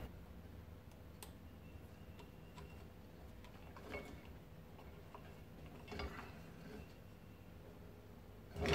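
Faint, scattered clicks and taps of metal compressor parts being handled as an aluminium cylinder barrel is worked down over a piston and its glide ring. A single sharp knock comes at the very end.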